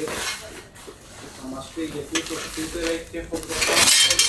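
Workshop handling noise: metal tools and parts clinking and clattering, with a louder hissing rustle near the end.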